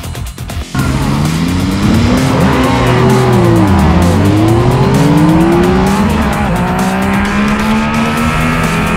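Two Yamaha three-cylinder motorcycles, a Tracer 9 GT and an MT-09, accelerating flat out side by side. Their engine notes start suddenly about a second in, climb through the revs, drop at gear changes and climb again.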